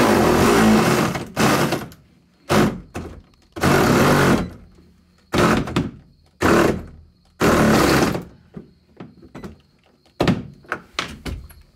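A hand-held power tool run in about eight short bursts, each from a third of a second to a second and a half long, working a tight, cross-threaded dashboard fastener home, with a few quick clicks near the end.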